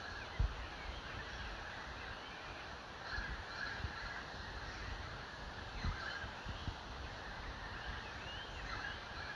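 Birds calling at dusk: short, arching calls come and go repeatedly over a steady outdoor hush, with a few low thumps, one about half a second in and another near six seconds.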